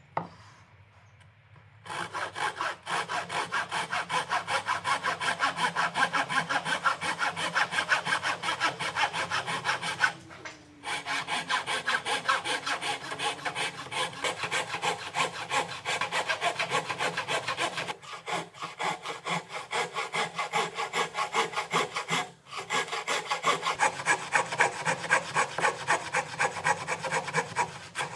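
Hand saw cutting into a softwood board with quick, even back-and-forth strokes, its blade guided flat against a wooden block. It starts about two seconds in and stops briefly three times.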